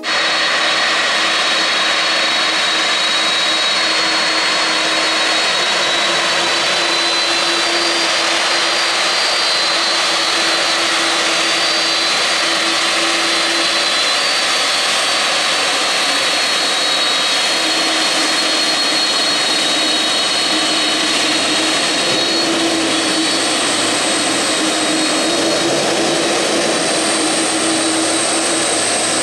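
McDonnell Douglas MD-11 trijet freighter's engines running at low taxi power as it rolls slowly: a steady rush of jet noise with high whining tones that shift slightly in pitch.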